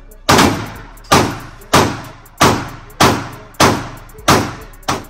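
Pistol shots fired at a steady pace, about eight in all, roughly two-thirds of a second apart, each ringing off the walls of an indoor range.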